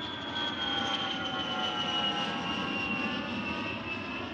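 Jet airliner engines passing overhead and moving away: a whine of several tones gliding slowly down in pitch over a steady rushing noise.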